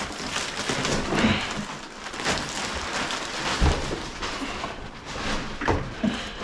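Black plastic trash bag rustling and crinkling as it is handled and dragged.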